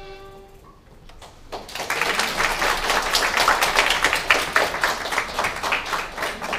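The last held violin note of the duet fades out within the first second, then applause starts about one and a half seconds in and runs on as dense, fast clapping.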